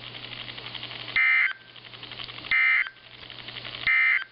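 Three short, high-pitched warbling data bursts from a NOAA Weather Radio broadcast, each about a third of a second long and spaced just over a second apart: the EAS/SAME end-of-message tones that close an alert. Between the bursts the radio carries a faint low hum and a quick, ticking hiss.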